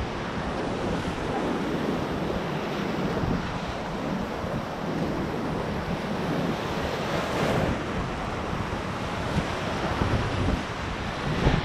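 Whitewater rapids rushing and churning around a kayak running them: a steady roar of turbulent water with splashing, swelling slightly now and then.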